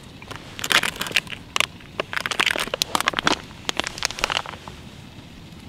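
Freeze-dried scrambled egg meal pouch crinkling and crackling in irregular bursts as it is handled.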